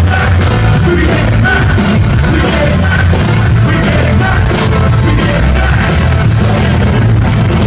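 Live band playing loud amplified music, heavy bass with a steady beat, heard as a crowd recording at a gig.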